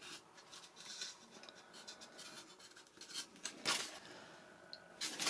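Faint rubbing and light scraping of hands handling a foam model airplane's fuselage and tail, with a few brief louder scrapes in the second half.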